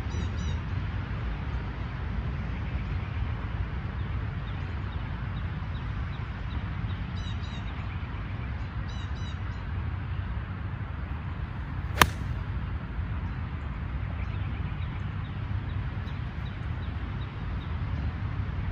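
A golf wedge strikes a ball once, a single sharp click about twelve seconds in, over a steady low outdoor rumble with a few faint bird chirps.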